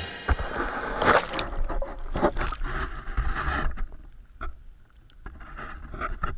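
Water sloshing and lapping, with irregular splashes and sharp knocks.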